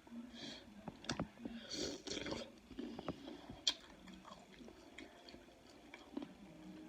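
A person chewing and biting food from a seafood boil close to the microphone, with scattered wet mouth clicks and smacks and a louder stretch of chewing about two seconds in.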